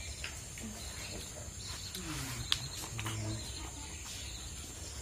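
Someone eating ripe mango slices: wet chewing and lip-smacking clicks, with a low voiced hum gliding down in pitch about two seconds in, over a steady high hiss.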